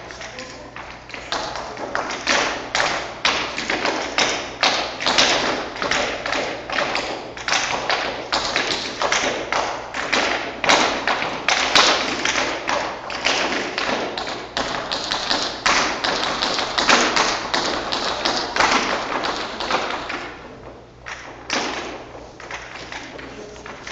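Cape Breton step-dance footwork by young children: rapid, irregular taps and thuds of shoes on a wooden dance board, easing off near the end.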